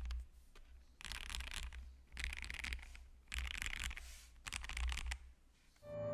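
Mechanical keyboard with Akko Starfish switches being typed on: four quick runs of rapid keystrokes, each under a second long, with short pauses between.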